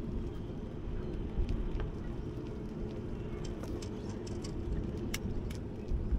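Wind buffeting the microphone, a steady low rumble, with a few faint light ticks scattered through it.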